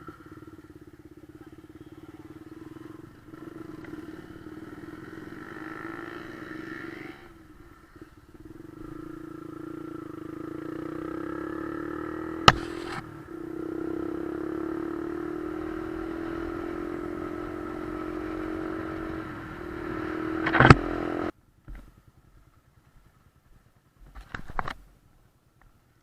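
Motorcycle engine running on the move, its pitch rising slowly in the middle, with a sharp click about twelve seconds in and a loud knock near twenty-one seconds, after which the engine sound cuts off suddenly.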